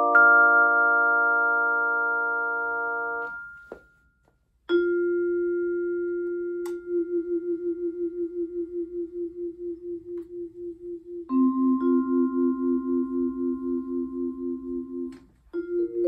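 1960s Deagan vibraharp: a chord rings on, dying slowly, and is damped about three seconds in. After a short gap a single bar is struck and rings; a couple of seconds later the motor-driven vibrato is switched on and the note pulses about four times a second, a second, lower note joins in the same pulsing, and both are damped near the end.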